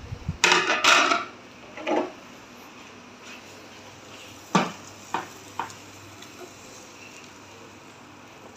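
Crockery and cookware clattering: a ceramic plate and a frying pan knock together with a loud clatter about a second in. A few sharp taps follow as scrambled eggs are tipped and knocked out of the pan onto the plate.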